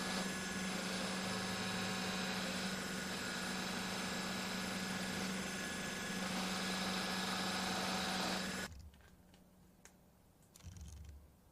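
Milling machine running with a steady mechanical hum while cutting a slot in a steel part. The hum stops abruptly about three-quarters of the way through, leaving only a few faint knocks.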